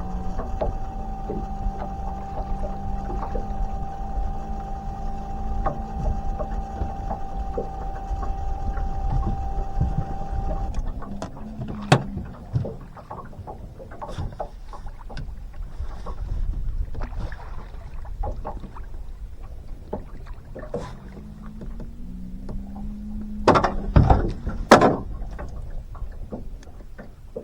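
A boat motor hums steadily, then cuts off suddenly about ten seconds in. Scattered knocks and clicks follow, the hum comes back briefly with a rising pitch, and two loud sharp knocks come near the end.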